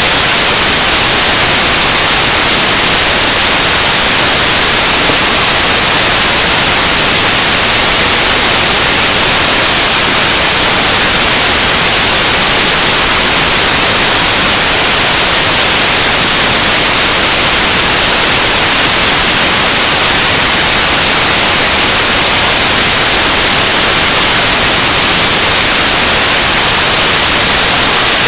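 Noise music: a loud, unbroken wall of static-like hiss, heaviest in the treble, holding steady without any change.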